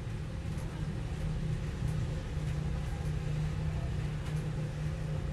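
Steady low rumble of background noise, growing slightly louder over the first couple of seconds, with no speech.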